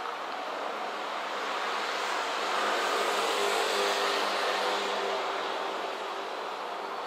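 A KiHa 47 diesel railcar running, heard from on board: a steady rumble of engine and running noise with a low hum, growing louder in the middle and easing off near the end.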